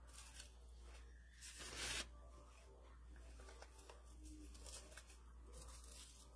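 Faint rustling of dried moss and grass being handled and pressed onto a craft board, with one louder rustle of about half a second near two seconds in. Otherwise near silence over a low steady hum.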